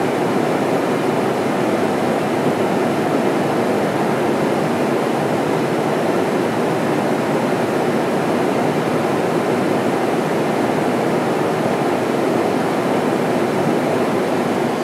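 Steady, loud rush of airflow and engine noise inside a McDonnell Douglas KC-10A Extender tanker in flight.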